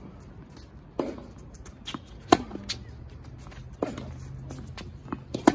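Tennis rally: a ball struck back and forth with rackets, four sharp hits about a second and a half apart. The nearer player's hits are the loudest.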